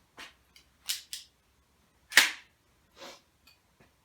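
Handling clicks of a PSE Viper SS pistol crossbow being loaded with its last bolt: a few short clicks and scrapes in the first second, then one sharp, loud snap about two seconds in and a softer click near three seconds.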